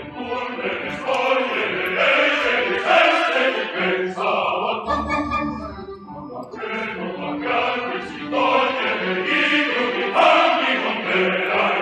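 Large opera chorus singing in full voice with orchestra, easing into a softer passage about halfway through before swelling again.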